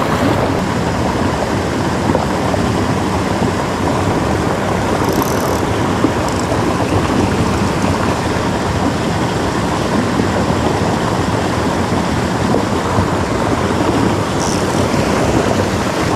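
Creek water rushing steadily over small rock cascades into a pool.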